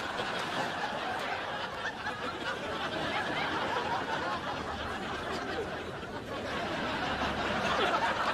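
Studio audience laughing, a steady crowd laugh that swells a little louder near the end.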